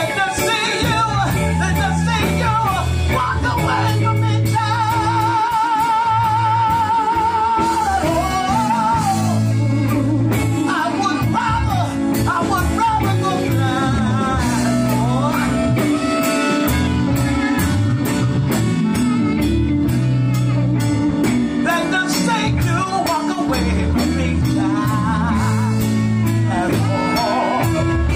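Live band playing with a lead singer, electric bass and electric guitar over a steady beat. The singer holds one long note with vibrato from about four to eight seconds in.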